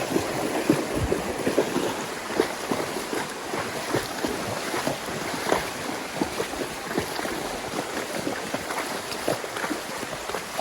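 Horse walking on a rough, rocky trail: irregular knocks and scuffs of hooves over a steady rushing noise, with wind on the microphone.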